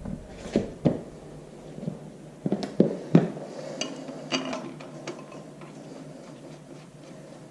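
Sharp metal clinks and knocks of steel bolts and tools being handled while the flywheel is bolted to the crankshaft: about half a dozen in the first three seconds, a few lighter ticks after, then it settles.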